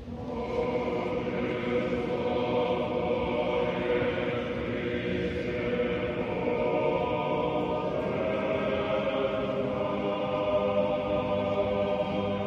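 Russian Orthodox church choir singing unaccompanied in long held chords; the singing starts abruptly at the outset.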